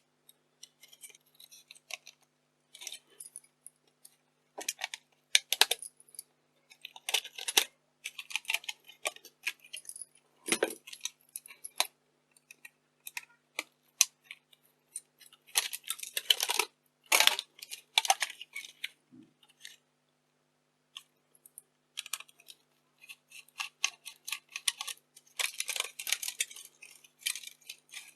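Small metal and plastic camcorder parts clicking, rattling and scraping as they are handled and prised apart by hand, in irregular clusters with short pauses between.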